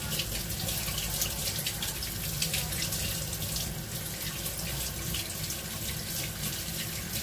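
Kitchen tap running steadily into a stainless steel sink, with irregular splashing as cut pieces of fish are rinsed and rubbed clean under the stream by hand.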